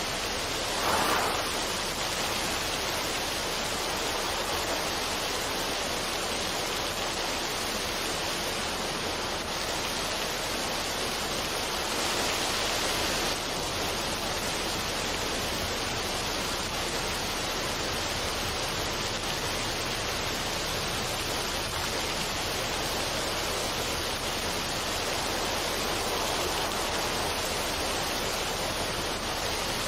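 Waterfall on a mountain stream, water rushing steadily over rocks, with a brief louder splash about a second in.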